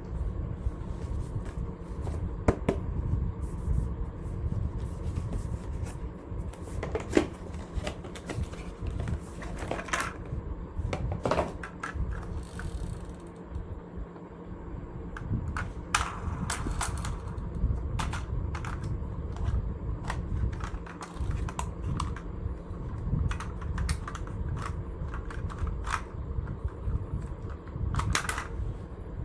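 A small motor running steadily under a scatter of irregular sharp clicks and clacks from small hard parts.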